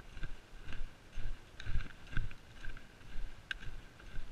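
A hiker's footsteps on a sandy track, about two a second, with light clicks from a trekking pole at each stride and one sharper click about three and a half seconds in.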